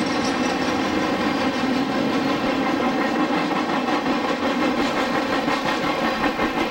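Intermodal freight train of trailers on flatcars rolling past at speed: a steady rumble of steel wheels on the rails, with faint, rapidly repeated clicks.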